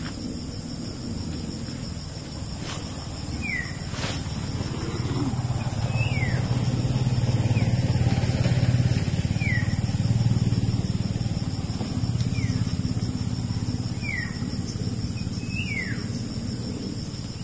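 Engine of a passing motor vehicle humming, growing louder toward the middle and fading near the end. A bird gives short falling whistled calls every second or two.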